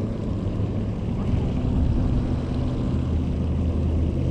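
A steady low motor drone, a hum of several even tones under a wash of noise, holding steady throughout.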